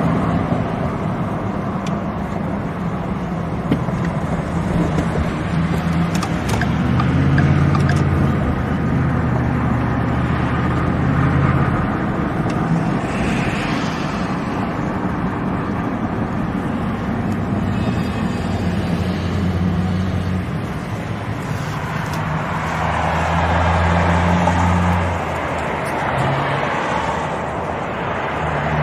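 Motor vehicle driving in traffic: a steady low engine drone with road and tyre noise, swelling and easing a few times.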